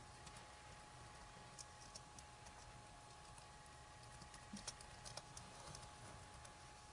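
Faint, irregular key clicks of typing on a Dell Latitude E4310 laptop keyboard, freshly reseated, coming in short runs over a faint steady hum.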